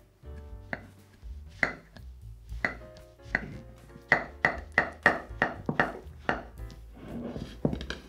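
A quick series of sharp, briefly ringing clinks of utensils against a dish, about three a second and densest in the middle, over soft background music.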